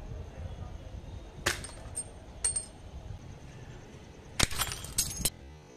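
Toy BB gun firing: three sharp snaps about half a second apart, the last two trailed by a short high clink, then a quick cluster of shots about four and a half seconds in.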